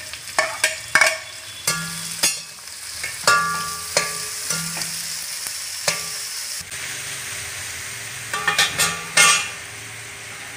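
Sliced onions sizzling in hot coconut oil in a metal kadai while a metal spatula stirs them, clanking and scraping against the pan. The clanks come thick in the first half and again in a short run near the end, some leaving a brief ring from the pan.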